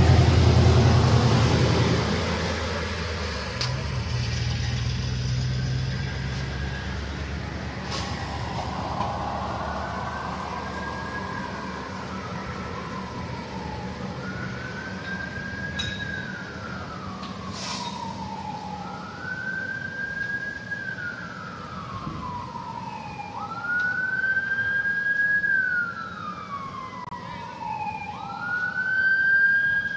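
A low vehicle-engine rumble fades over the first couple of seconds. Then an emergency vehicle siren wails in slow rising and falling sweeps, about one every five seconds, growing louder toward the end.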